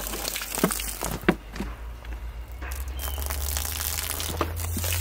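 Plastic soda bottle crinkling and knocking as it is handled and lifted, with a few sharp clicks in the first second and a half over a low steady rumble.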